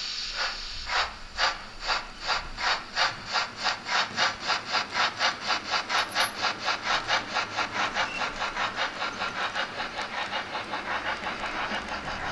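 Steam chuffing from the sound decoder of a Märklin H0 model of the Royal Bavarian S 3/6 steam locomotive, played through the model's speaker. The exhaust beats speed up from about two to about four a second as the train gathers speed, then blur together and lose their punch over the last few seconds.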